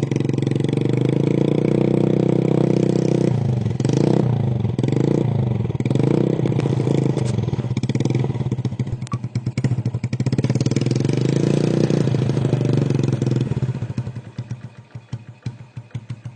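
Yamaha Vega ZR's single-cylinder four-stroke engine revved through its exhaust: held high for a few seconds, then blipped sharply several times, held up again, and dropped back to a lumpy idle near the end.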